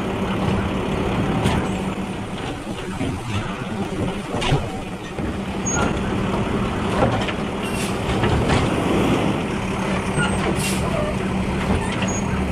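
Automated side-loader garbage truck running its lift arm. The diesel engine and hydraulics hum steadily throughout, broken by scattered clanks and bangs as the arm grips a polybin, raises and tips it, and sets it back down.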